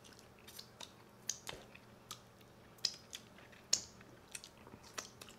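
People chewing and biting chicken wings: an irregular run of soft mouth clicks and smacks, a few of them louder.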